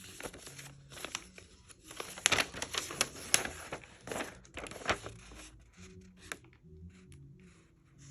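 Packaging crinkling and rustling as it is handled and opened. The handling is busy for about the first five seconds, then thins to occasional faint rustles.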